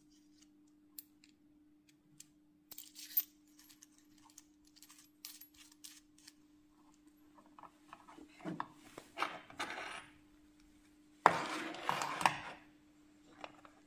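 Small metallic clicks and scrapes as a steel barrel and knurled nut are threaded onto a soldering iron handle, with the louder clatter of the iron and its cable set down on a table about eleven seconds in. A faint low steady hum lies underneath.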